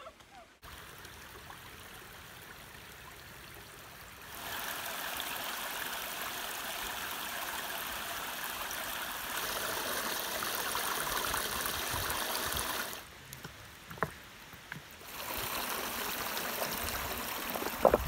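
Small woodland stream running and trickling over rocks and fallen logs, a steady rush of water that grows louder about four seconds in and drops away briefly near the end. A short sharp knock comes just before the end.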